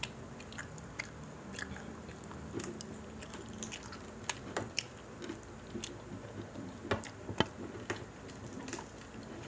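Close-up eating sounds of crispy pata, a deep-fried pork leg: chewing with wet mouth clicks, crackling of the fried skin, and fingers tearing the meat and fat off the bone. Two sharper crunches come about seven seconds in.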